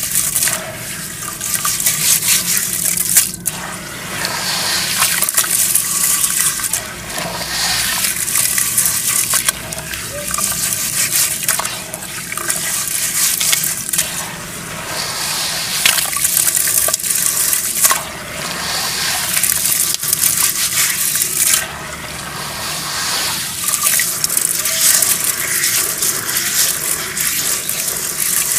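Hands squeezing and crumbling lumps of wet, gritty brown dirt in a basin of muddy water, with sloshing and squelching. The sound comes in repeated swells every two to three seconds.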